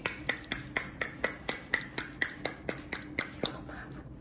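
Rapid, even clicking: sharp short clicks about four a second, stopping about three and a half seconds in.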